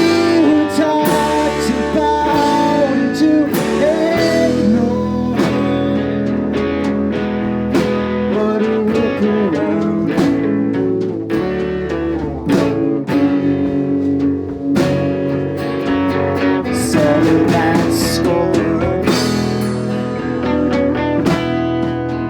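Live rock band playing a song, with guitars to the fore.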